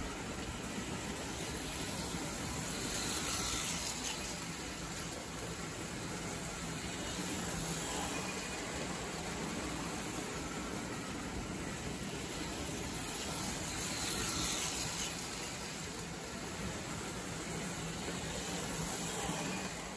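Lionel 1101 postwar O-gauge steam locomotive and its tin-plate cars running on three-rail tubular track: a steady rolling rumble and motor whir that swells in loudness a few times as the train comes around.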